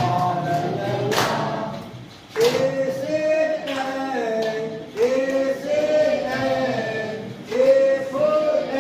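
Voices singing a sing-song phonics chant, phrase after phrase, each held and gliding in pitch.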